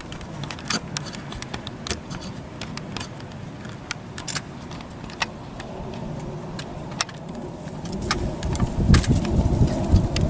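Wind buffeting the microphone in gusts, strongest near the end, with scattered light clicks and small metallic rattles throughout.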